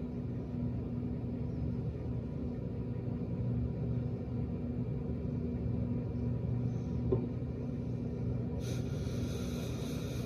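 Steady low hum of kitchen room tone, then about eight and a half seconds in, an aerosol cold spray hisses in one continuous burst, chilling the isomalt glue so it sets.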